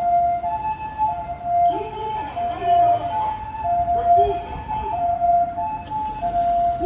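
Japanese ambulance two-tone hi-lo siren in residential mode, the quieter setting used in housing areas. It keeps alternating a higher and a lower note, each held about half a second.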